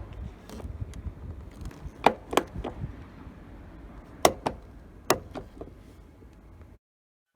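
Lexus CT200h door being opened and closed, giving the loud abnormal noise it makes in use: sharp clacks, three about two seconds in and another cluster about four to five and a half seconds in, over a low rumble.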